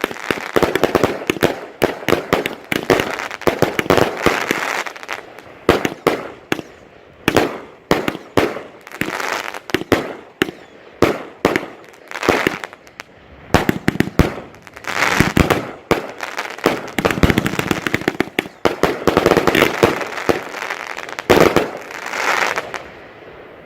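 A consumer firework cake firing: a fast, irregular string of sharp shots and bursts, with denser noisy stretches between the louder bangs.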